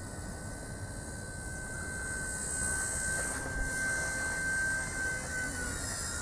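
Electric motor and rotor of a WLToys V922 six-channel RC micro helicopter, a steady high whine that dips slightly in pitch about five seconds in.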